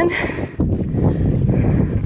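Wind buffeting the microphone on an exposed summit: a loud, low rumble that sets in about half a second in, just after the tail of a drawn-out spoken word.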